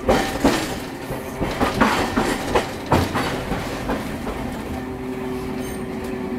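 Hiroshima Electric Railway 650-class tram no. 651 running on street track, heard from inside the car: its wheels clatter over the rails in a string of knocks for the first three seconds. It then settles into a steadier rumble with a low steady hum.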